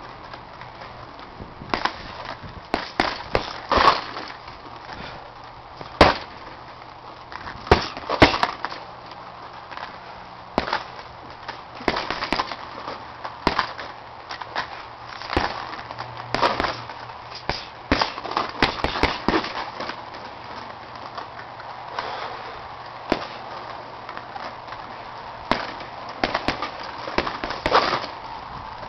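Boxing gloves punching a hanging heavy bag: irregular sharp smacks, often in quick combinations of two to four, with short pauses between.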